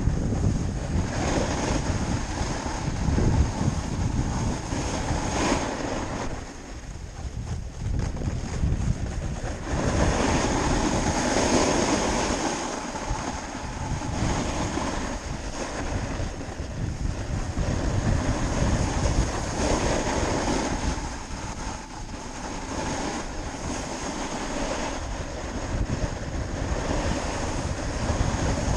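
Wind rushing over the microphone with the hiss of a snowboard sliding on snow, swelling and easing over several seconds, as on a run down the slope.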